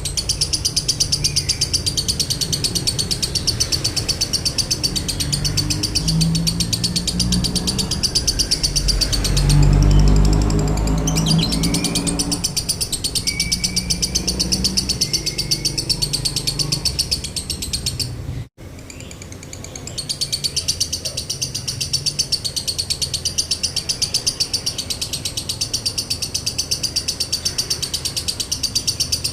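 Lovebird chattering in a long, rapid, evenly pulsed run of high shrill notes, the continuous 'konslet' style of song. The chatter thins briefly near the middle while a low rumble swells, and it breaks off for a moment about two-thirds of the way through before resuming.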